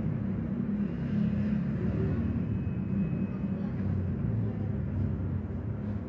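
Outdoor background noise: a steady low rumble.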